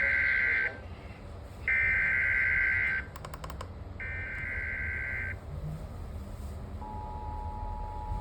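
Emergency Alert System SAME header: three screeching two-pitch data bursts, each about a second long and a second apart. About seven seconds in, the steady two-tone EAS attention signal starts and holds. It is the start of an alert relaying a severe thunderstorm warning.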